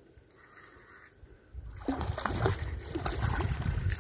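A hooked fish splashing and thrashing at the water's surface as it is reeled toward the bank, starting suddenly about a second and a half in and continuing loudly.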